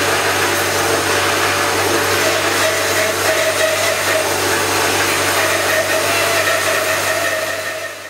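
Bandsaw running steadily as a green aspen log is fed through its blade. The sound fades out at the very end.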